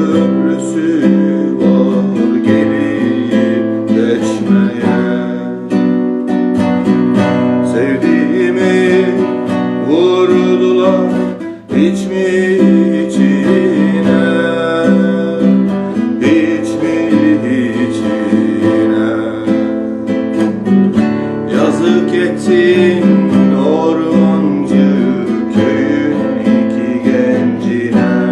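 Music: a plucked string instrument playing the melody of a Turkish folk song (türkü) over held low notes, with a brief drop about a third of the way through.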